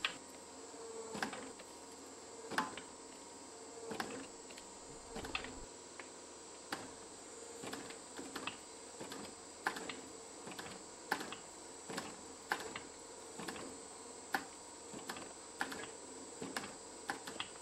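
Glowing canister-Damascus steel being squeezed under hydraulic press dies, with sharp irregular cracks and pops, roughly one a second, as oxide scale breaks and flakes off the hot steel. Under them runs a steady hum with a faint high whine.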